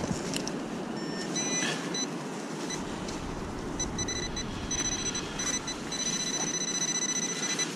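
Handheld metal-detecting pinpointer beeping as it is probed through dug wet sand: short high beeps at first, then a held tone for the last couple of seconds as it closes on the buried target, over a steady low rush.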